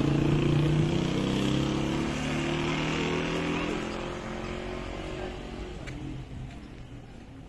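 A motor vehicle's engine running with a steady hum that fades away over about five seconds, as if the vehicle is moving off.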